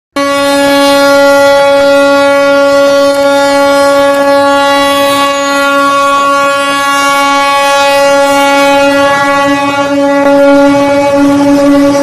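Ship's horn sounding one long, steady blast that sets in just after the start. It is a single loud held tone rich in overtones.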